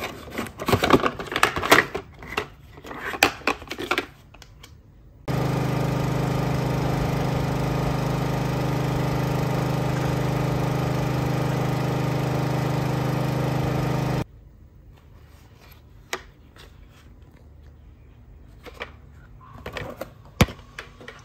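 Clicks and rattles of a plastic toy truck being handled in its cardboard box. About five seconds in, a real tanker truck's engine runs steadily for about nine seconds while it pumps out water through a hose, starting and stopping abruptly. After that come quieter handling clicks.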